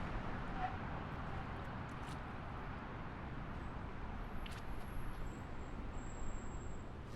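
Highway traffic heard at a distance: a steady, even wash of road noise, heaviest in the low end, with a few faint ticks.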